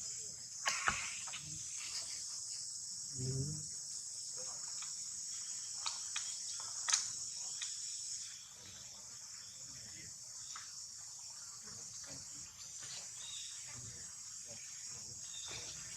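Steady high-pitched chirring of an insect chorus, crickets or similar. It drops in level about halfway through and picks up again, with a few short sharp clicks or knocks in the first half.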